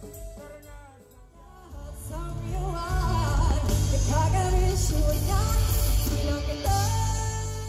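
Live rock band playing: a female singer over electric guitars, bass and drums, getting louder about three seconds in.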